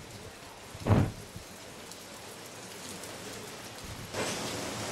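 Heavy rain hissing steadily, with a brief low thump about a second in. The rain noise grows louder and brighter near the end.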